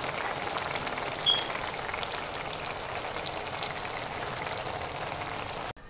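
Thick beef bolognese sauce simmering in a pan, reduced and done: a steady sizzling crackle with small pops. There is a brief high ping about a second in, and the sound cuts off suddenly near the end.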